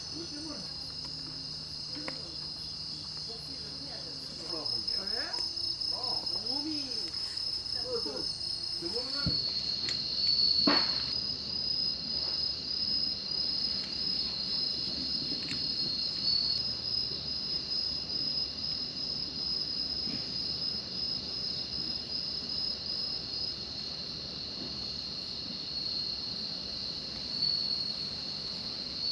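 A chorus of insects trilling steadily in a high, continuous drone, with faint voices for a few seconds before a single sharp click about ten seconds in.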